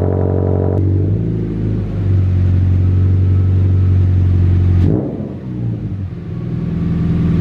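Subaru BRZ flat-four idling through a straight-through exhaust: catless, non-resonated front and mid pipes and an Invidia N1 with its mufflers cut off, ending in titanium pipes and quad tips. It idles cold at first, then the steady warm idle from about a second in, with a brief dip in loudness and a shift in pitch near five seconds in.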